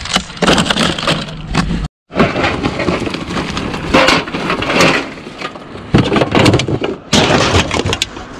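Empty aluminium drink cans and plastic bottles clattering and crinkling as they are tipped from a plastic bag into a plastic tote and handled and crushed there, with many irregular knocks. A short gap of silence about two seconds in.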